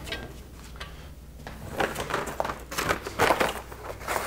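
Irregular rustling and scraping of fabric and tape being handled on a work table, a cluster of short noisy scrapes starting about halfway in.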